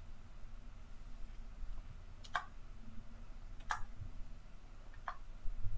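Computer mouse clicks: three short, sharp clicks about a second and a half apart over faint room hum.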